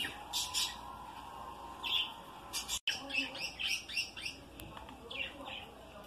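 Budgerigars chirping: short, high calls coming on and off, some with quick rising glides.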